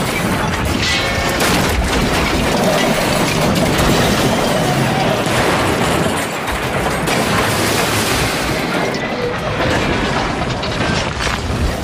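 Film sound effects of a train wreck: a loud, continuous din of crashing and grinding as railroad cars derail and pile up.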